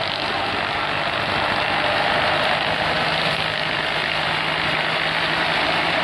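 Tractor-driven rice thresher running steadily while threshing paddy: the drum and straw blower make a dense, even rushing noise over a steady low engine hum.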